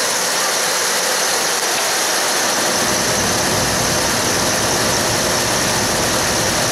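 MAN TGX 680's V8 diesel engine idling steadily with a constant hiss over it; a deeper low rumble fills in about three seconds in.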